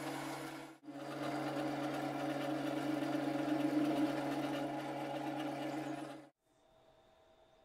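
Mini lathe running while it machines a cast-iron block, first turning it and then drilling its end. The steady motor sound breaks off briefly about a second in and stops about six seconds in, leaving only a faint hum.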